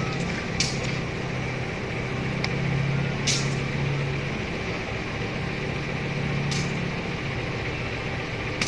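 Steady low drone of a standing diesel passenger train's engine idling, with a few brief sharp clicks or hisses in between.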